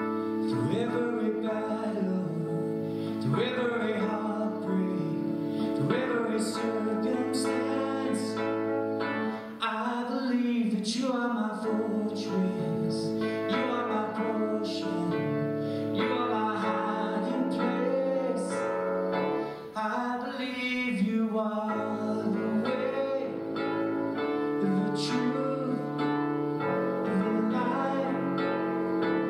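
Piano playing the instrumental introduction to a worship song: sustained chords with notes entering every second or two.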